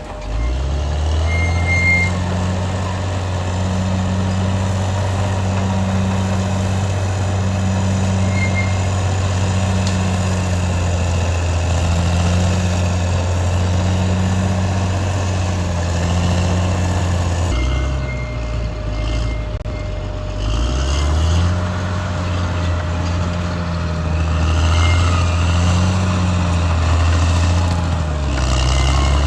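Caterpillar D6R XL bulldozer's diesel engine running under load with a steady low drone. The engine note drops about two-thirds of the way through and builds back up a few seconds later. A few short, high-pitched chirps are heard over it.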